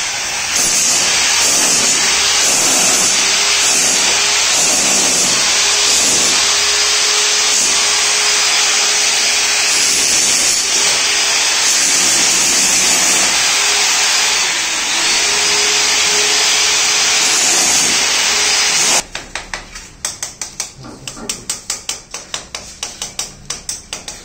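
Handheld electric power tool running steadily and loudly with a hissing edge, worked against the tiled wall and floor during tile removal. About nineteen seconds in it stops, and a quick run of sharp knocks follows.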